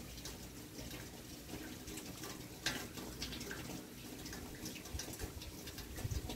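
Thunderstorm rain falling and running, with scattered drips ticking and a low rumble underneath; one sharper tick about two and a half seconds in.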